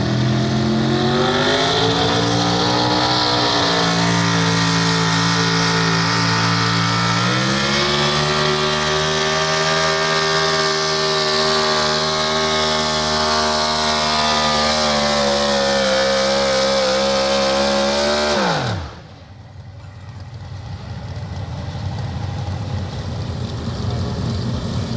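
Pro Stock 4x4 pulling truck's engine at full throttle under load, the revs climbing over the first couple of seconds and jumping higher about seven seconds in, then holding steady and high. About eighteen seconds in the engine is shut down at the end of the pull, its pitch falling fast to leave much quieter background noise.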